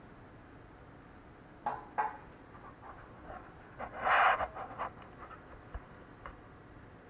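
Two sharp clicks of a glass being set down on a hard countertop, the first with a brief glassy ring. About four seconds in comes a short, louder rustle, with light handling clicks around it as a wrapped accessory is unpacked.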